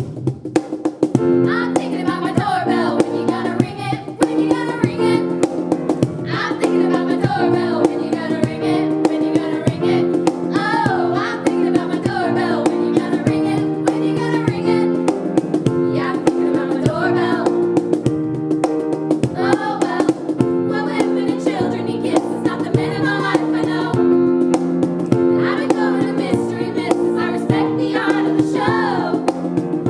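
A song: a singing voice over strummed plucked-string chords.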